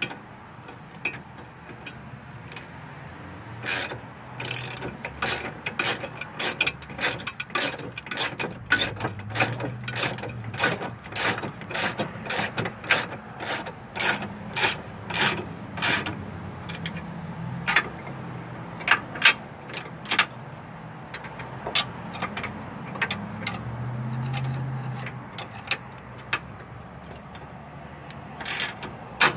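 Ratchet wrench clicking in quick runs, then in sparser spurts, as a nut is run onto a plow-mount bolt and left loose rather than tightened.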